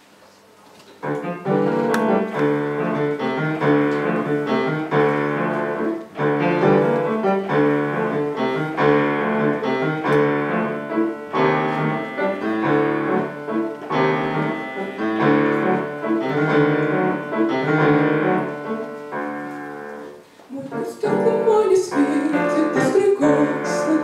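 Grand piano playing the accompaniment to a song, coming in about a second in after a quiet moment, with steady chords and a short pause near the end.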